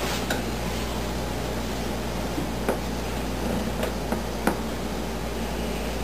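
Scissors snipping through hair: a few sharp, separate snips spread over several seconds, over a steady low hum and hiss of room noise.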